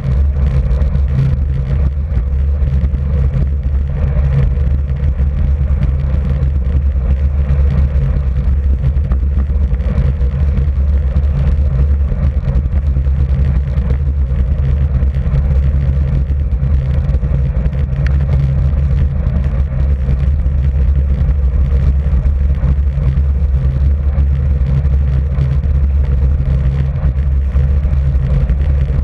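Steady low rumble of wind and road noise on a bicycle-mounted camera's microphone while riding at about 37–39 km/h.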